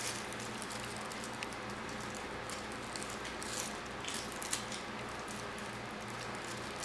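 Faint rustling and a few light clicks of plastic packaging being opened and handled, heard mostly in the middle of the stretch, over a steady low hum.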